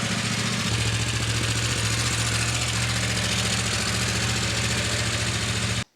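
KTM 890 Adventure's parallel-twin engine idling steadily, a little louder from just under a second in, then cutting off abruptly near the end.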